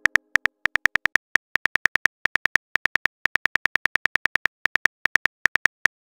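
Phone keyboard typing sound effect: a rapid, uneven run of identical short key clicks, about six or seven a second, as a message is typed out.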